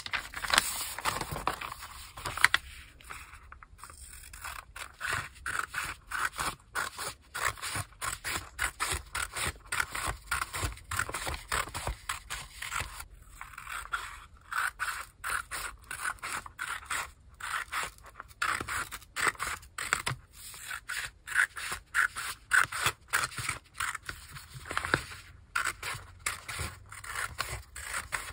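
Scissors cutting through a sheet of paper in a long run of crisp snips, about two a second, with a couple of brief pauses where the cut stops.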